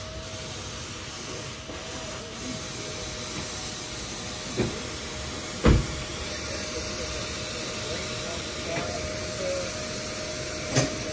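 Steady mechanical hum and hiss of an oil-change service bay with a thin steady whine. There are three sharp clunks: a light one a little before halfway, the loudest about halfway, and another near the end.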